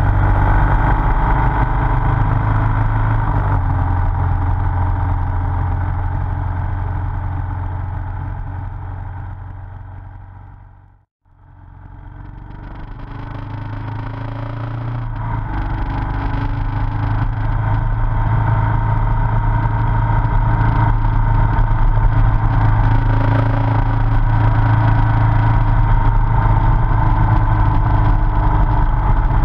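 Motorcycle engine running steadily at cruising speed, with wind noise, heard from on the bike. About eleven seconds in the sound fades out to silence, then fades back in.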